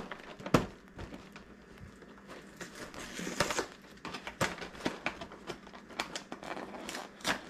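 A cardboard cereal box being handled and its top flap worked open: scattered knocks and crinkling, with one sharp knock about half a second in.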